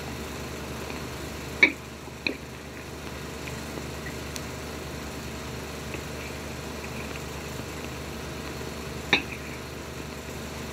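Spoons clinking against china soup plates, three short clinks: two close together about two seconds in and one about nine seconds in. Underneath runs the steady hum and hiss of a worn 16 mm optical film soundtrack.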